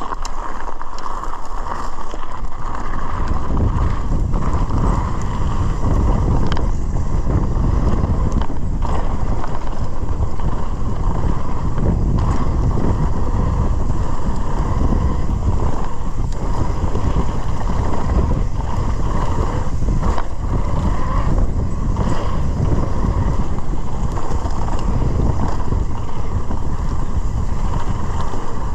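Wind rushing over the microphone during a fast mountain bike descent, over a steady rumble of tyres rolling on gravel and dirt singletrack. Short knocks and rattles from the bike come through now and then as it goes over bumps.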